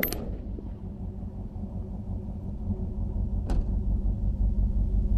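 Steady low outdoor rumble of wind on the microphone. At the very start come the last echoes of a rifle shot fired just before, and about three and a half seconds in there is one faint, sharp tap.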